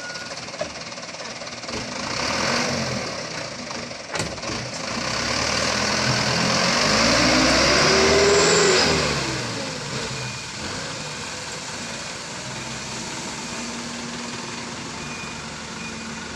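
Diesel engine of a light truck loaded with oil-palm fruit pulling away under load. It grows loudest about eight seconds in, then falls in pitch and fades as the truck drives off.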